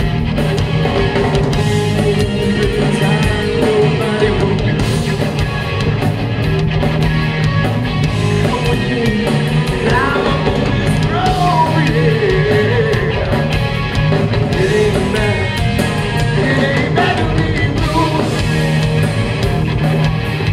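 A hard rock band playing live at full volume: distorted electric guitar over electric bass and drums, with bending guitar notes around the middle.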